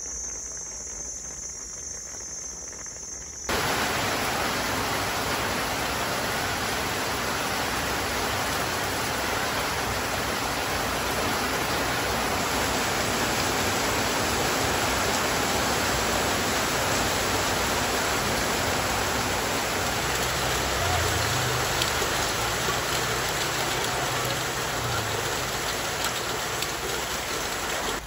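A high insect trill for the first few seconds, then heavy rain starts suddenly and pours steadily, water streaming off a thatched roof onto leaves.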